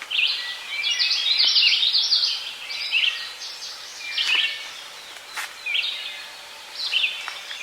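Several songbirds singing in spring woods, overlapping chirps and trills that are dense for the first few seconds and then come as scattered phrases. A couple of faint clicks are heard near the middle.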